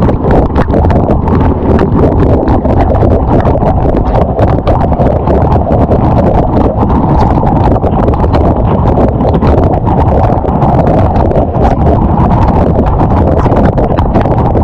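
Waterfall water churning, loud and muffled: a steady dense rumble with rapid small knocks running through it.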